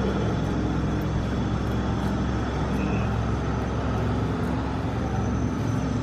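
Steady low mechanical hum.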